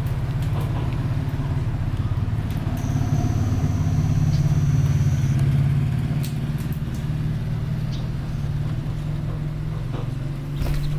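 A motor engine running steadily with a low hum, swelling slightly in the middle, with a thin high whine for a couple of seconds about three seconds in.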